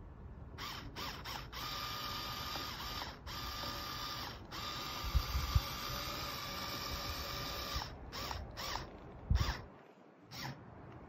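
Black+Decker electric screwdriver motor whining steadily as it drives a screw. It runs with a few brief stops, then gives several short bursts near the end. A few dull knocks, the loudest sounds here, come at about five seconds in and again around nine seconds.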